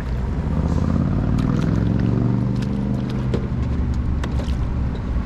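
A motor engine running steadily, its pitch rising slightly about two seconds in, with scattered light clicks over it.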